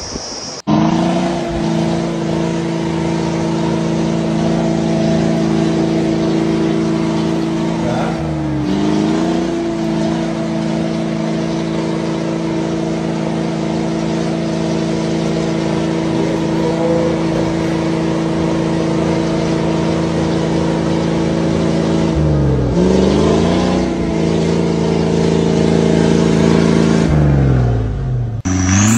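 Engine of a cab-over army truck on oversized tractor tyres, running under load through deep snow with a steady drone. Its pitch briefly dips and recovers about a third of the way in, again about three quarters in, and once more near the end.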